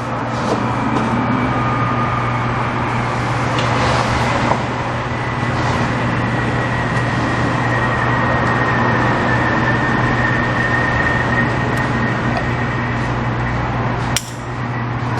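An engine or motor running steadily with a low hum and a thin high whine over it; a click and a brief drop in level come near the end.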